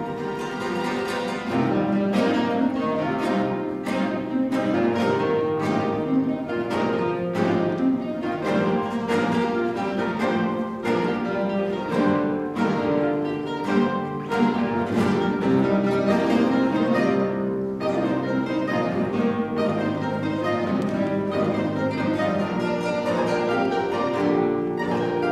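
A large ensemble of classical guitars playing together, with many plucked notes and chords; the music grows louder about a second and a half in.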